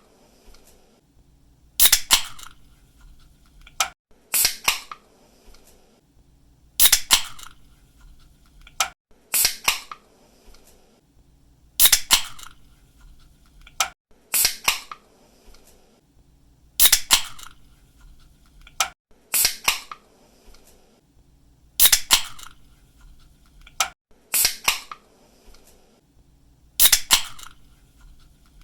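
Aluminium drink can's pull tab cracked open again and again: a sharp snap or double snap with a short fizzing hiss, about every two and a half seconds.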